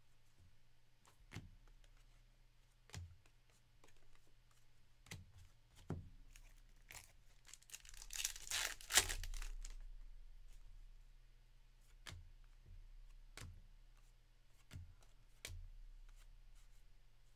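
A 2024 Topps Series 1 baseball card pack's wrapper torn open and crinkled for a couple of seconds about halfway through, amid scattered light clicks of trading cards being flipped and shuffled in the hands.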